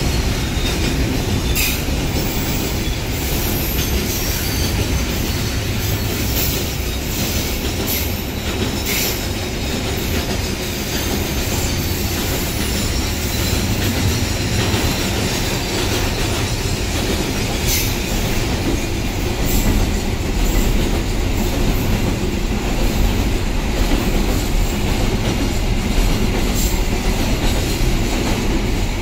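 Container flat wagons of a long freight train rolling past: a steady loud rumble of steel wheels on the rails, with scattered sharp clacks as the wheels cross rail joints.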